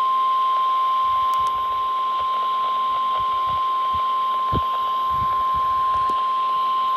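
A single steady alert tone held without a break: the NOAA Weather Radio 1050 Hz warning alarm tone that comes before a warning message. It sounds over a background of radio hiss with faint low pops.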